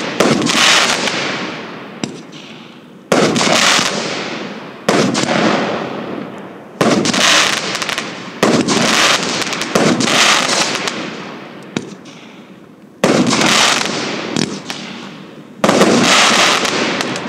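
Triplex TXB776 X-Treme 37-shot, 25 mm (1-inch) firework cake firing shot after shot at irregular gaps of one to three seconds. Each shot is a sudden bang that fades out over a second or two.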